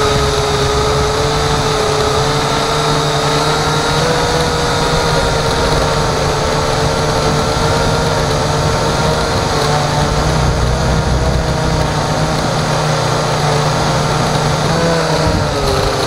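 Small remote-controlled aircraft's motor and propeller running steadily, heard close from the onboard camera with wind rushing past; the pitch dips briefly near the end.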